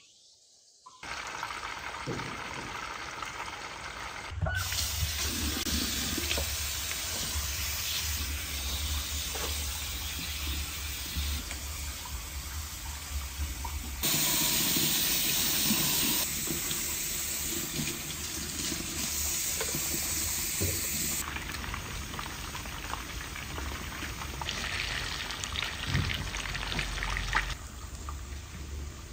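Water running and splashing, like a tap or poured water, steady but changing abruptly several times.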